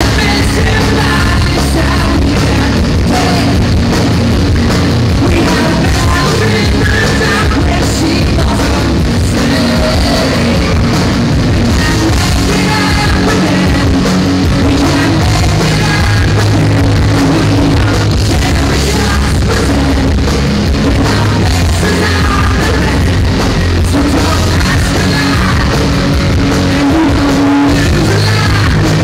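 Live rock band playing: a singer sings into a microphone over electric guitars, bass and drums, loud and steady throughout.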